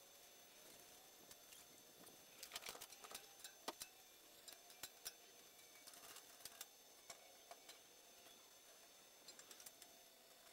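Near silence with faint scattered clicks and taps, bunched together a few seconds in and sparser after that.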